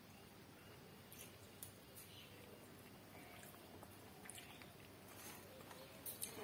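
Faint chewing and soft mouth clicks of a person eating rice and soybean curry by hand, with scattered small ticks and a few louder clicks near the end.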